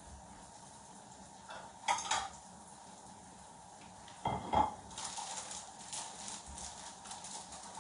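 Ceramic plates clinking as one is lifted from a stack in a cupboard, then set down on a worktop with a clack about four seconds in. From about five seconds on comes a quick crinkling, like a plastic packet of tortillas being handled.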